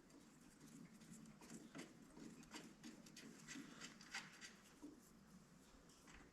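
Faint, irregular light clicks and taps of small metal parts being handled: nuts being threaded back onto their bolts by hand.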